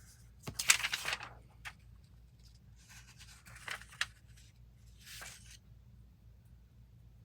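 Paper being handled in a few short, noisy bursts: the loudest about a second in, more around three to four seconds in with a sharp click, and another about five seconds in.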